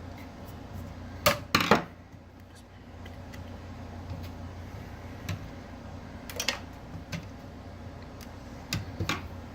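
Kitchen mixer grinder parts being handled while it is pried open. Two loud sharp knocks come a little over a second in, and a few lighter clicks follow later.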